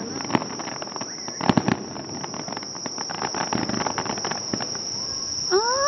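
Aerial fireworks popping and crackling, with a cluster of bangs about a second and a half in, over a steady high trill of crickets. Near the end comes a short rising pitched tone.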